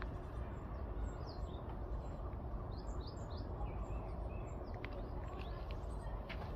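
Small birds chirping: scattered short, high chirps and quick falling notes over a steady low background rush.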